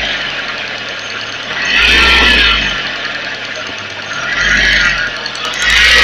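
Audi A4 engine bay with a whining noise that swells and fades about every two seconds, together with a deep rise in engine sound at each swell. The whine has been present for about a month without getting louder; its cause is unknown.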